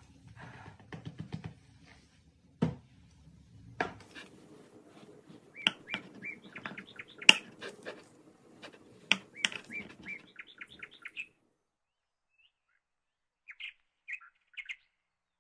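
Faint soft shaking with two sharp knocks in the first four seconds, then quick runs of short, high bird-like chirps mixed with sharp clicks. The chirps stop suddenly about eleven seconds in and come back briefly near the end.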